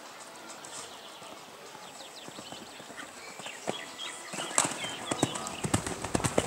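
Horse's hooves landing after a jump and then cantering on sand footing: a quiet start, then from about four seconds in a quick run of sharp hoofbeats that grows louder.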